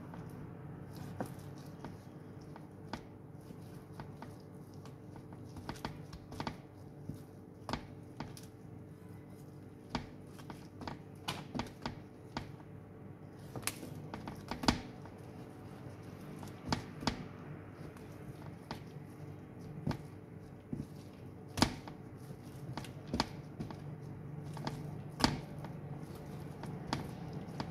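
Kitchen knife slicing raw chicken breast into strips, the blade knocking and tapping on the cutting board at irregular intervals, with a few sharper knocks among the lighter taps. A steady low hum runs underneath.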